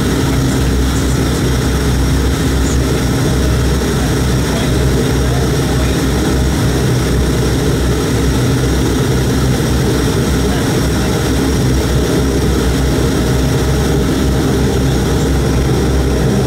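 Bombardier Dash 8 Q400's Pratt & Whitney PW150A turboprop engine and propeller running steadily on the ground, heard from inside the passenger cabin as an even drone with a low hum and a few steady tones.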